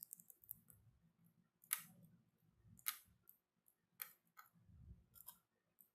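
A few sharp plastic clicks, about one a second, with faint handling rustle, as the laptop's plastic casing and panel are worked open.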